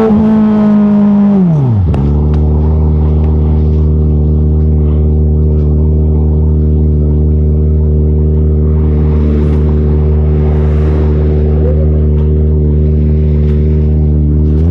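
Kawasaki ZX-25R's 250 cc inline-four, through an Arrow titanium full-system exhaust, held at high revs and then dropping quickly back to a steady idle about two seconds in.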